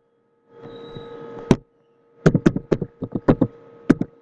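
Computer keyboard keys clicking as a word is typed: a single keystroke about one and a half seconds in, then a quick run of about seven, over a faint steady electrical hum.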